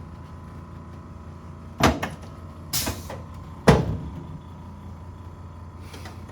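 Hands-on chiropractic adjustment of a patient lying face down on a treatment table: two sharp thumps about two seconds apart, the second the louder, with a brief rush of noise between them.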